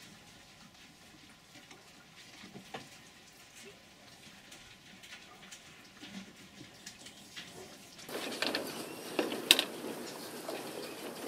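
Faint rustling and scattered clicks, growing louder and scratchier with sharp taps from about eight seconds in, as a caged animal moves about on wire mesh.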